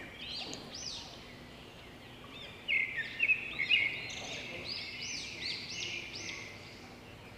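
Small birds chirping in quick rising-and-falling calls, with a brief trill, busier in the second half, over a faint steady hiss.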